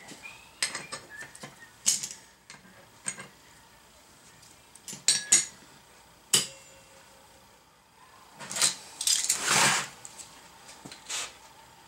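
Steel parts handled on a steel welding table: a locking welding clamp and a steel fixture plate holding a brake bracket clink and clack several times, then a couple of longer scrapes late on as the fixture is tipped up on edge.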